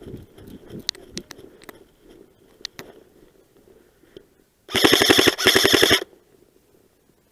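Airsoft gun firing two short full-auto bursts about five seconds in, a rapid even rattle of shots, each burst about half a second long. A few scattered clicks come before.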